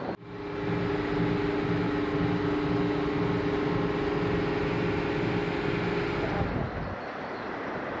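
Steady mechanical hum of running machinery: two held tones over a pulsing low throb. It stops about six and a half seconds in, leaving a duller background hum.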